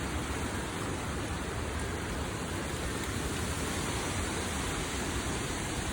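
Strong tropical-storm wind blowing, a steady rushing noise with no let-up.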